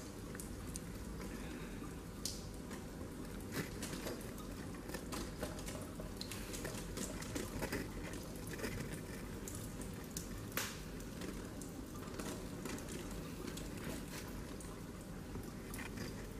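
Tap water running in a thin stream into a stainless-steel sink, with scattered small splashes and ticks as cats paw at the stream.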